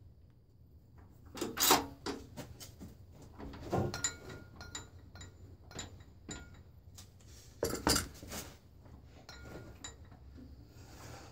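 Irregular knocks and clatter with short metallic clinks as a stacked plywood block is handled and set down on the particleboard drill-press table, the two loudest knocks about two seconds in and about eight seconds in, over a low steady hum.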